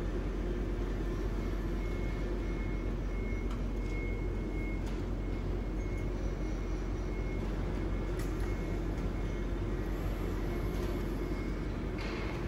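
Steady low machine hum and hiss of a running robot work cell, with a faint high whine and a few light clicks.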